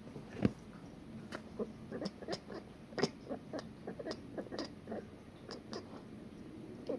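Domestic cat chirping at a bird: a quick, irregular series of a dozen or more short chirps.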